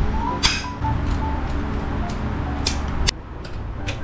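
Metal backdrop-stand tubes clinking and knocking as they are handled: a sharp clink about half a second in and a cluster of clicks near the end. Background music plays underneath.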